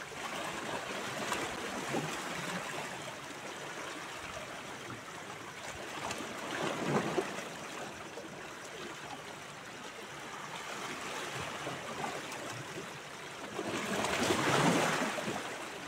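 Small sea waves lapping at the shoreline: a steady wash, with two louder surges, one about seven seconds in and one near the end.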